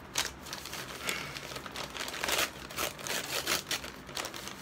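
Brown paper takeout bag crinkling and rustling in the hands as it is opened and rummaged through, in an irregular run of crackles.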